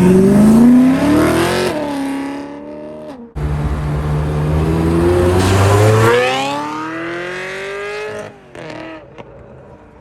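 BMW M3 accelerating hard as it pulls away, its engine note climbing steeply in pitch. This happens twice, with a sudden break between the pulls about a third of the way in, and the second pull fades out near the end.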